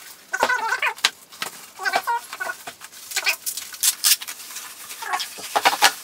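Packing foam and bubble wrap being pulled off a boxed machine, played back sped up: irregular squeaky rubbing of the foam and sharp crinkles of the plastic, the loudest crinkles about four seconds in and again near the end.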